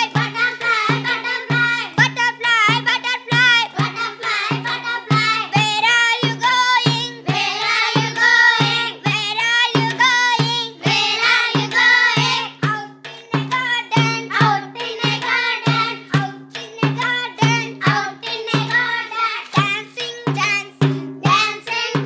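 Upbeat dance-trend song: young voices singing over a steady bouncing bass beat of about two beats a second, the bass dropping out briefly about three-quarters of the way through.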